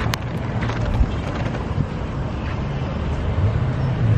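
Wind buffeting a handheld camera's microphone: a steady low rumble, with a couple of light knocks in the first second.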